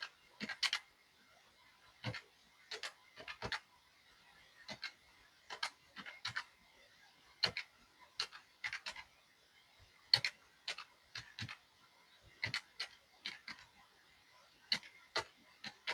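Faint, irregular light clicks and taps, one or two a second and sometimes in pairs, from hands tallying cash at a table.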